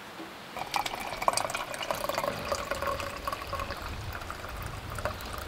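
Liquid pouring and filling, starting about half a second in: hot water poured from a kettle onto ground coffee in a French press. Near the end it changes to brewed coffee pouring into a stainless steel mug.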